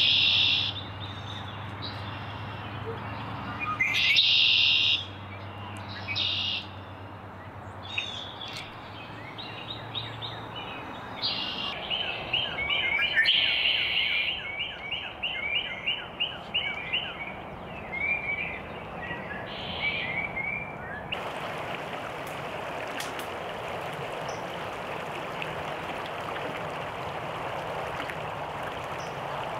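Red-winged blackbird calling: a few loud separate calls, then a fast run of short repeated notes. About two-thirds of the way through, the calls give way to the steady rush of a shallow stream running over stones.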